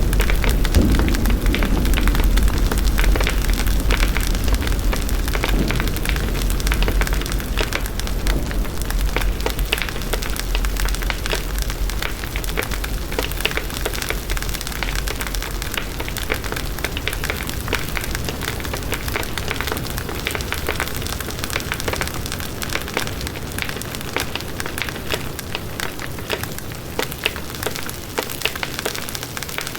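Volcanic eruption sound effect: dense, continuous crackling over a deep rumble. The rumble dies away over the first half, and the whole sound slowly grows quieter.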